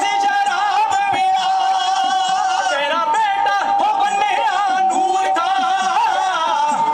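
Punjabi dhadi vaar: male voices singing in wavering, ornamented lines over a steady held note, accompanied by sarangi and the small hourglass dhadd drum.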